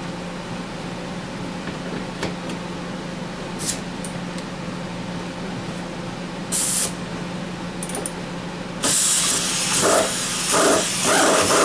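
Aerosol penetrating-oil spray can hissing: a short burst about six and a half seconds in, then a longer, louder spray from about nine seconds in, broken by brief pauses.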